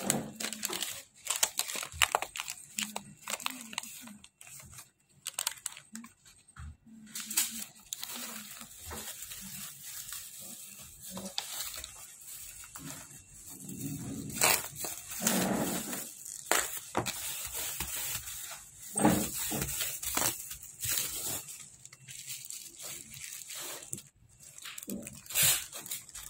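Cardboard, paper and bubble-wrap packaging being torn open and unwrapped by hand: irregular rustling, crinkling and tearing with scattered sharp handling clicks and knocks.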